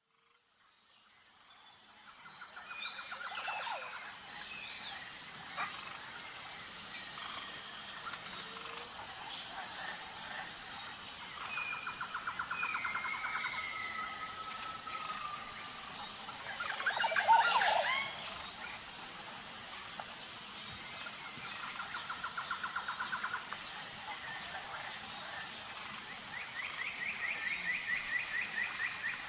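Tropical forest ambience fading in: a steady high-pitched drone with a regular pulsing note, over scattered bird calls and rapid trills. A louder cluster of calls comes about two-thirds of the way through.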